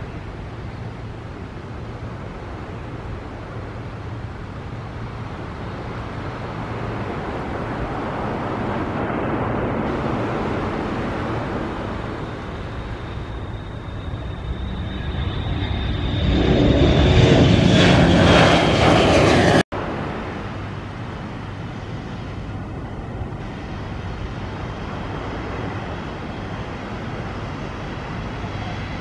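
Jet airliner engines at takeoff power: a steady rumble that swells to a loud roar with a high fan whine falling slightly in pitch as the plane passes. It cuts off abruptly about twenty seconds in, leaving a quieter distant engine rumble.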